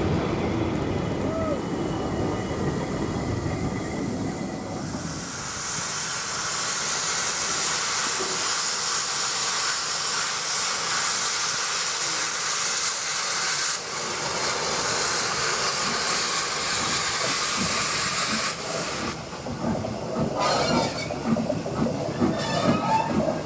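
Steam train with a long, loud hiss of steam that starts about five seconds in and cuts off about thirteen seconds later. A low rumble of the train comes before it and irregular rail clatter near the end.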